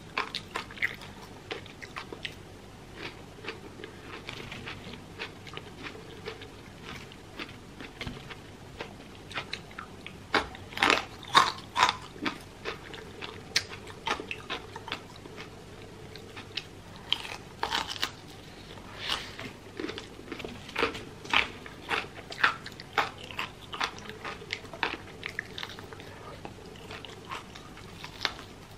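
Close-miked eating: chewing with crunchy bites, in irregular runs of sharp crackles and mouth clicks. Near the end, a bite into a crisp-coated fried chicken piece.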